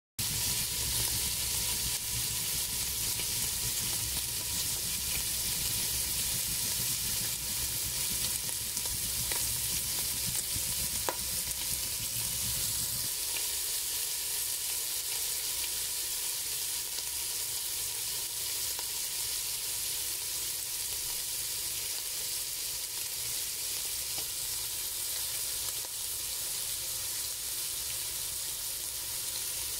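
Diced pork belly sizzling steadily in oil in a metal pot, the raw pieces just starting to fry. A low rumble underneath cuts off suddenly about halfway through.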